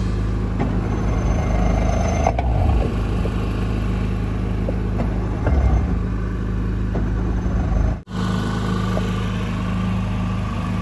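Boat motor running steadily at low speed, with the sound cutting out for an instant about eight seconds in.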